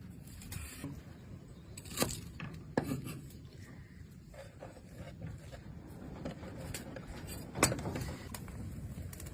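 Scattered clinks, knocks and scrapes of cooking utensils against dishes, with sharp knocks about two seconds in, just under three seconds in and again near the end.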